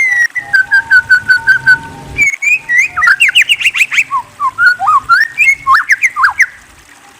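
A bird singing a varied whistled song: first a quick run of repeated, even notes, then a fast string of rising and falling whistles, which stops shortly before the end.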